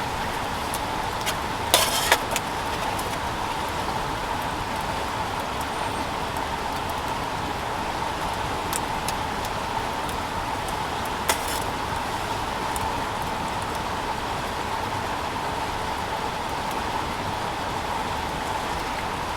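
A steady hiss with a few sharp pops, twice close together about two seconds in and once more near the middle, like split firewood crackling as it burns.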